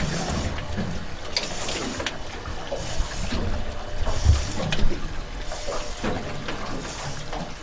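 Water washing and splashing against a small boat at sea, in repeated hissy washes roughly every second, over a low rumble.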